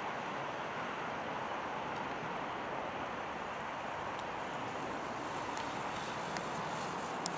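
Steady, distant roar of a Boeing 777 freighter's twin jet engines as the aircraft moves along the runway.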